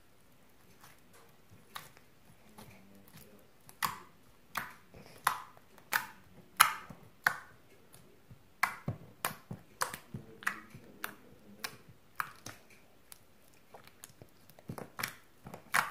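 Clear glitter slime squeezed and poked by fingers, giving a run of sharp, sticky clicks and pops. They are faint at first, then from about four seconds in come irregularly, one or two a second, some much louder than others.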